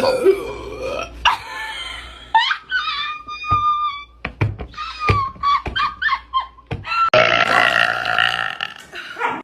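Women burping, a string of separate burps from different clips, the sound changing abruptly between them. One long, drawn-out burp lasts about two seconds near the end.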